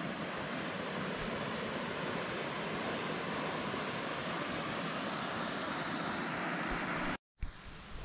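Steady rush of water from a waterfall cascading over rocks into a stream pool, an even hiss with no breaks; it cuts off suddenly near the end.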